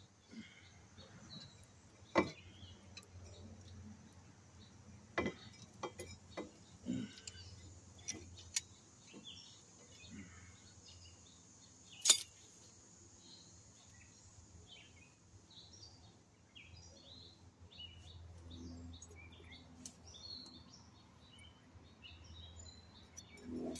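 Birds chirping, with scattered sharp clicks and knocks, the loudest a single sharp knock about twelve seconds in.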